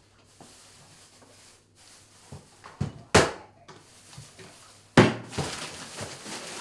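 Kitchen clatter as groceries are put away: hard objects knocked and set down, with two loud bangs about three and five seconds in and a rustling hiss after the second.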